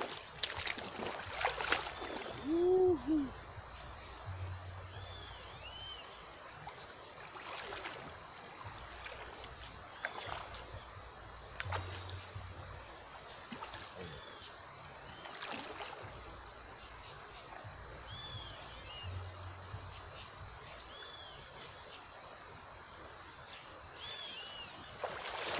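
Water splashing and trickling as a hooked jacundá (pike cichlid) is played in and landed by an angler standing in the river, over a steady high-pitched hiss.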